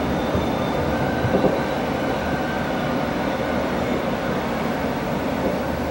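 Fireworks display: a steady low rumble of bursts and their echoes, with a small pop about a second and a half in.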